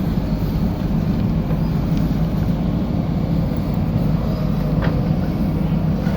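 JCB 3DX backhoe loader's diesel engine running steadily under work, a constant low drone.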